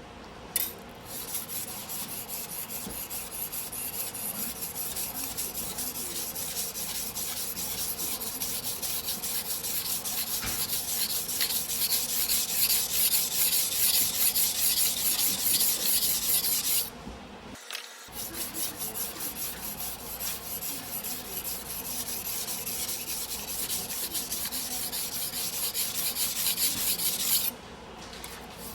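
A 270 mm single-bevel sujihiki's steel blade stroked back and forth over a whetstone in quick, regular scraping strokes. The grinding breaks off briefly about 17 seconds in, then resumes and stops just before the end.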